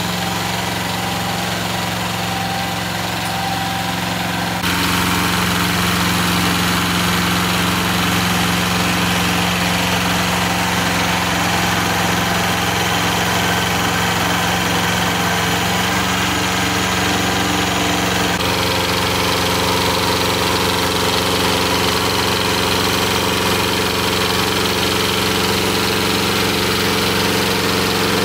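A vehicle engine running steadily at an even speed, its tone shifting abruptly twice, about five seconds in and again past the middle.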